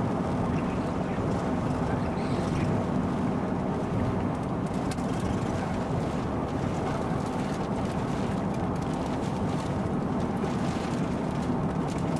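Steady in-car rumble of a vehicle on the road, with wind noise. From about four seconds in, scattered faint taps of raindrops hitting the windshield.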